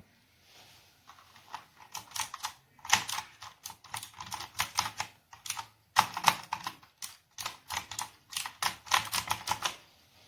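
Typing on an AULA F2088 typewriter-style mechanical keyboard with clicky blue switches: fast runs of key clicks starting about a second and a half in, broken by short pauses twice.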